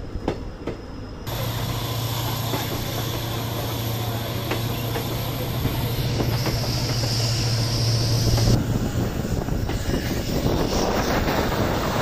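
Passenger train running on the track, heard from inside a coach as wheel and rail noise. A little over a second in it gets suddenly louder with a steady low hum, and a high squeal joins it later on. Both drop back after about eight and a half seconds.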